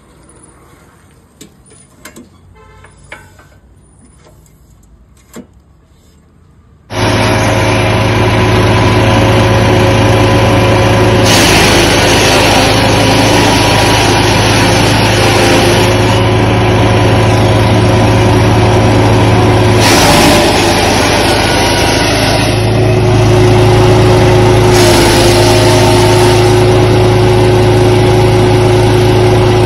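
A wood chipper's 14 HP, 459cc petrol engine comes in suddenly about seven seconds in, after a few quiet seconds with faint clicks, and then runs steadily at a constant pitch. A harsher rushing noise rises over the engine twice.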